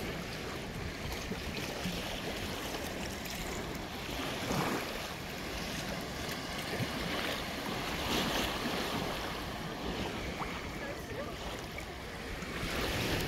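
Calm sea water lapping in the shallows of a sandy beach, a steady wash that swells louder a few times, with wind on the microphone.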